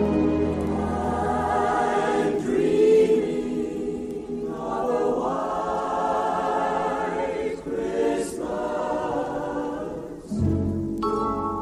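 Background music: a choir singing slow, held chords that change every couple of seconds.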